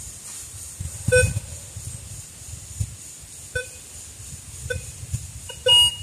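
Metal detector sounding short tone beeps as its search coil is swept over a freshly dug hole, signalling a buried metal target. There is one beep about a second in, then several from about three and a half seconds on, and the last, near the end, is louder and higher.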